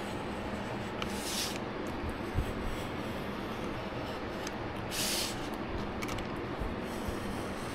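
Utility knife blade slicing through stiff white card, two short scratchy cuts about a second in and about five seconds in, over a steady background hiss.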